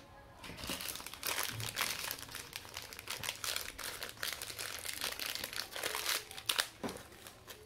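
Crinkling of a small white accessory pouch as hands handle and unfold it, in irregular crackles.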